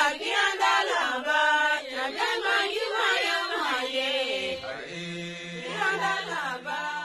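Chanted vocal music from a group of voices, with a steady low held note coming in about five seconds in.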